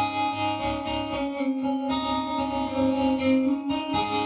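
Electric guitar playing ringing chords on its own, each chord left to sustain and struck again about every two seconds.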